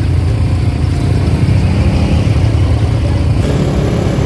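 Vehicle engine running steadily, heard from on board during a ride over rough trail.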